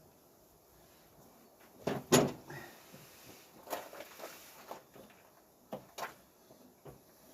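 Scattered metallic knocks and clunks as a heavy engine-mounted air compressor is handled and shifted against the engine while being fitted, with a double knock about two seconds in the loudest and several lighter ones after.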